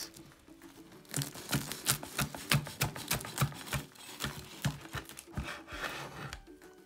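A large knife sawing through the crisp, pan-fried yufka crust of a börek, giving a quick, uneven run of crackles and crunches as the layered pastry breaks. The crackling starts about a second in and goes on until near the end.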